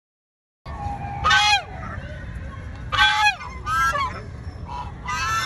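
After a moment of silence, a series of about five short honking bird calls, each falling in pitch, over a steady low background noise.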